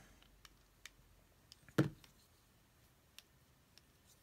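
A few faint, scattered clicks, one louder about two seconds in, from a Spyderco Dragonfly G10 folding knife and a small precision driver being handled while the knife's pivot screw is adjusted.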